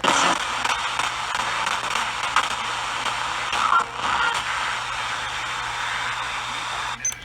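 Radio static: an even hiss over a steady low hum, with no voice, cutting off abruptly near the end.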